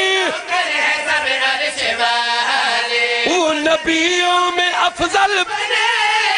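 Men's voices chanting a qasida through a public-address system, in long held sung notes, with a few sharp knocks in the middle.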